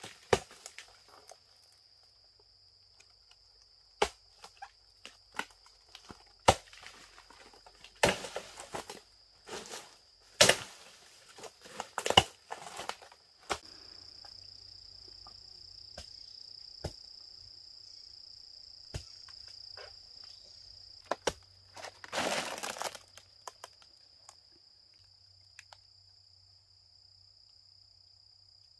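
Dry palm fronds and fibrous rotting palm wood crackling and snapping as they are stepped on and torn apart: scattered sharp cracks through the first half, then a short burst of crunching a little after twenty seconds. Under it a steady high insect buzz.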